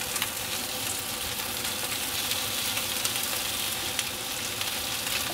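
Chicken wings sizzling in a hot pan as they sear skin side down, a steady frying hiss with light crackles and spits.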